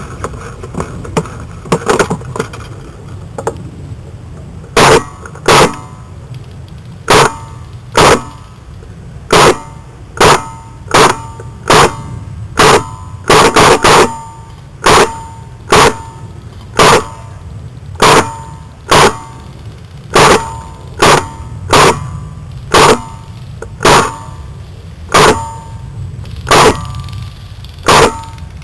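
A&K SPR Mod 0 airsoft electric rifle firing single semi-auto shots, roughly one a second with a few quicker doubles and triples, each a sharp loud crack with a short metallic ring. The shooting starts about five seconds in, after a few lighter clicks.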